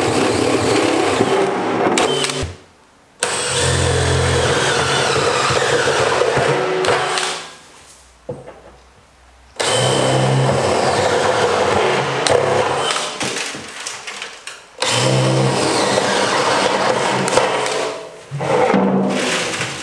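A DeWalt XR cordless drill with a step bit boring holes through the steel wall of a 55-gallon drum. The motor runs in repeated runs of a few seconds and stops briefly between holes.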